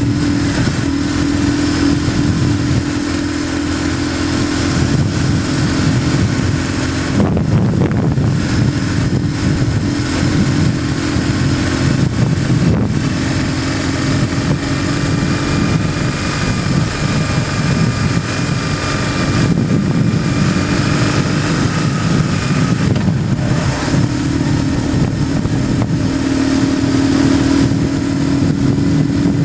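BMW GS motorcycle engine running steadily while riding at road speed, its note rising and falling only slightly. A low rumble runs underneath and gets heavier about seven seconds in.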